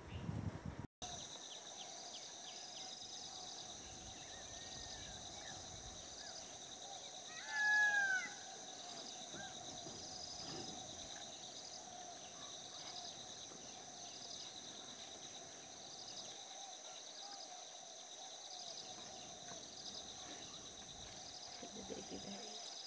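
Wild outdoor ambience: a steady high-pitched insect drone with a short chirp repeating about once a second. A single bird call, the loudest sound, rings out about eight seconds in.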